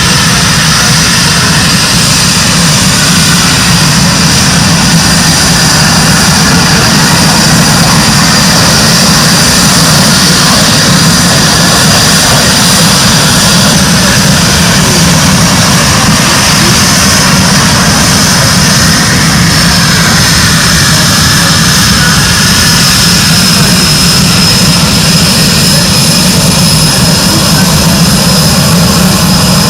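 Military fighter jet engines running with a loud, steady roar and a thin high whine that drifts slowly in pitch.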